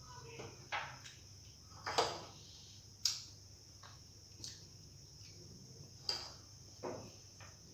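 Wet mouth smacks and clicks of someone chewing rice, dal and fish curry, about six irregular sharp smacks, over a faint steady hiss.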